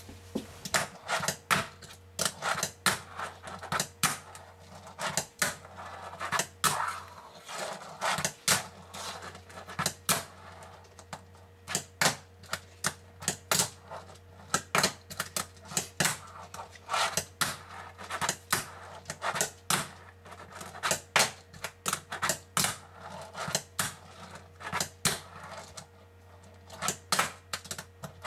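Fingerboard tricks on a hard tabletop: many sharp clacks, irregular and often in quick pairs and clusters, as the board's tail pops and the board lands.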